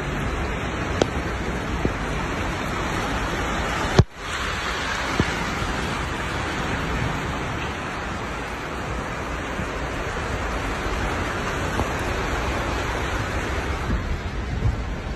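Heavy rain pouring down in a steady hiss, with a sharp click and a brief drop-out about four seconds in.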